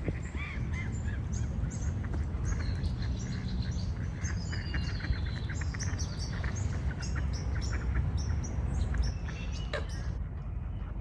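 Several birds calling, a dense run of short, quick chirps and trills over a steady low rumble.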